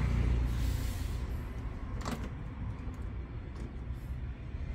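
Plastic clicks as a replacement oscillation gearbox is handled and fitted onto the back of a stand fan's motor, one sharp click about two seconds in, over a steady low background rumble.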